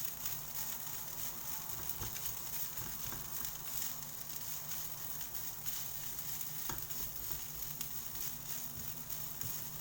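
Fried rice frying in a hot pan, sizzling steadily, with a few short scrapes or taps of the spatula as it is stirred.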